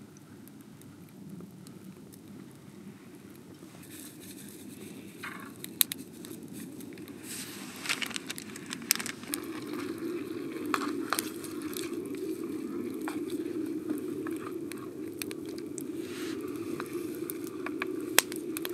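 Oysters and mushrooms bubbling and spitting in oil in a foil tray over a wood fire, with scattered sharp pops and crackles. The bubbling grows louder about nine seconds in.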